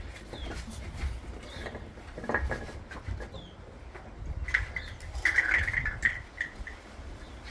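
Bernese Mountain Dog puppies giving short high squeaks and squeals while they play, with a run of squeals about two-thirds of the way in and light clicks and scuffles between them.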